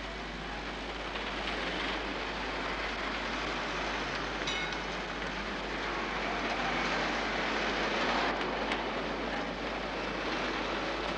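Railway train noise: a steady rush and hiss, with a short high squeal about four and a half seconds in.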